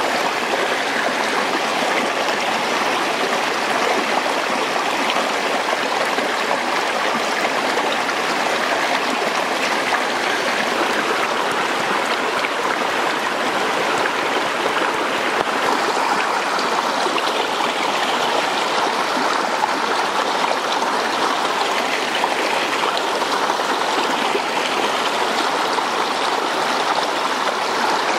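Shallow rocky stream running steadily, with an even rush of water over stones.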